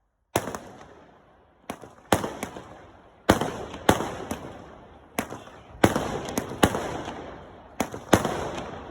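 Fireworks going off in a rapid, irregular series of sharp bangs, some in quick pairs, each trailing off in a long fading tail.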